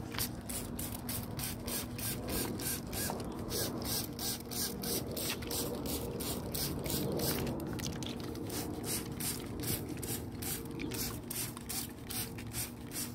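Garden soil being watered: water spraying in regular pulses, about three a second.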